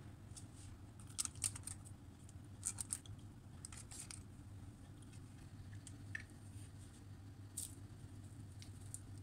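Parchment baking paper crinkling and crackling as a hand works apple pieces into batter in a lined cake pan. The crackles come in quick clusters through the first four seconds, with a couple more later, over a steady low hum.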